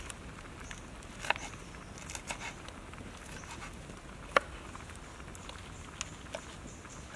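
Knife tapping on a wooden cutting board as vegetables are sliced: a few scattered sharp knocks, the loudest about a second in and again past four seconds. Underneath, a steady soft hiss from a wok simmering over a wood fire.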